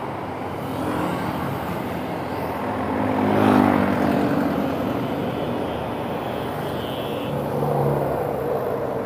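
Motorcycle ridden along a city street: steady engine hum and road noise. It grows louder about three to four seconds in as a car passes close alongside.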